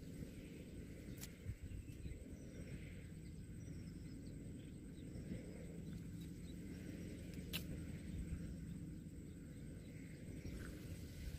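Faint evening wetland ambience: small bird and insect calls over a low steady rumble, with two sharp clicks, one about a second in and one near the eight-second mark.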